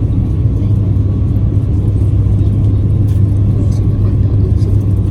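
Jet airliner engines at takeoff power heard inside the passenger cabin: a loud, steady, deep rumble.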